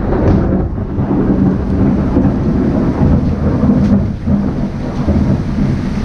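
Heavy rain falling, a steady loud low roar with a rumble like thunder.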